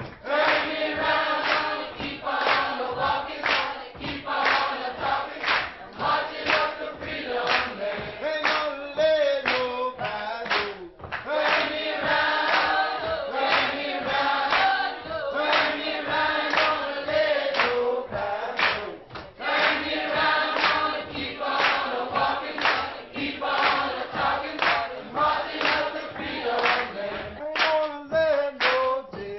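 Background music: a choir singing, with a regular beat.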